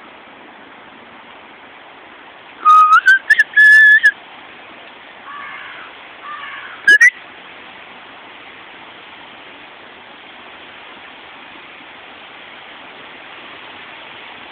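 A person whistling close to the microphone: a run of short notes stepping up in pitch about three seconds in, softer notes a little later, and one quick upward whistle about seven seconds in, over a steady hiss.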